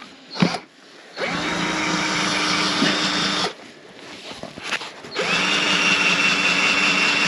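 Cordless drill running in two long, steady bursts, the second starting about five seconds in, as a self-drilling screw is pressed against iron and does not cut through.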